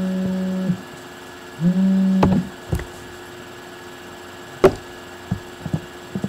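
Cell phone vibrating with its buzzing alert: one buzz stops under a second in, and a second, shorter buzz comes about a second later. A few sharp knocks follow, the clearest about four and a half seconds in.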